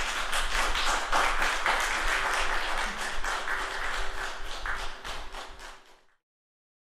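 Audience applauding, a dense patter of many hands clapping that thins out and cuts off about six seconds in.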